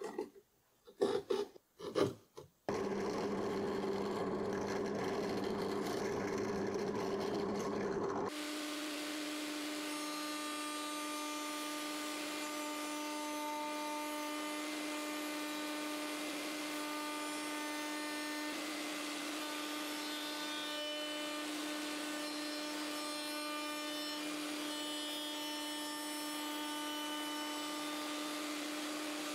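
A few short knocks and scrapes, then a router table's motor running steadily with a thin spiral bit cutting plywood. About eight seconds in, the sound changes to a steadier hum with a clear tone.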